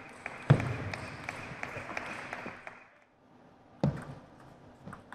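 Table tennis rally: the plastic ball clicking off the rackets and table in quick succession, about four clicks a second, then a single sharp knock near four seconds in.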